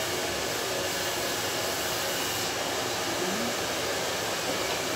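Steady rushing, blowing noise of running air.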